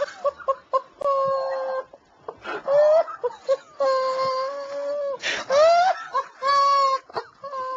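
A man laughing helplessly in a high-pitched wail: several long held squealing notes, about a second each, one sliding upward, broken by short gasps.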